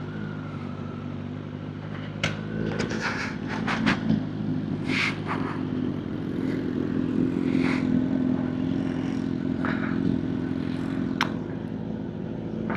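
Sport motorcycle engine idling steadily, with scattered clicks and scrapes over it.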